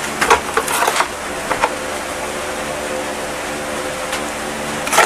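Knife blade being worked into a thin-walled orange PVC pipe sheath: light plastic clicks and scrapes in the first second or so, a few more soon after, and a sharper click near the end. An electric desk fan hums steadily underneath.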